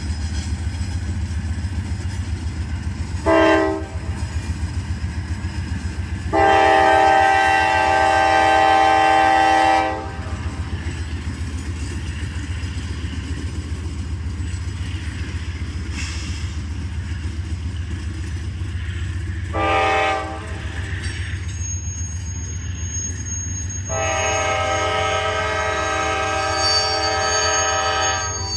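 Norfolk Southern diesel freight train passing, with a steady low rumble of locomotive engines and wheels. The locomotive's multi-tone air horn sounds four times: a short blast about three seconds in, a long one around seven seconds, another short one around twenty seconds, and a long one near the end.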